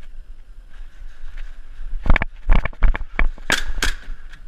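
A quick run of knocks and clicks starting about two seconds in, then two sharp cracks near the end, about a third of a second apart: shots from an airsoft pistol.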